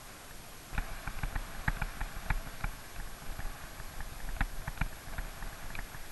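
A bicycle and its mounted camera rattling over rough pavement: irregular clicks and knocks start about a second in and go on over a steady hiss of wind and road noise.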